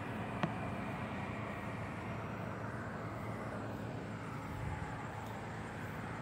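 A steady low mechanical drone, like a distant motor, with one short click about half a second in.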